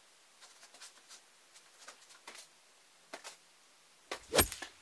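A person bowing over and over: faint rustling of hair and clothing with a few soft ticks, then one loud thump about four seconds in.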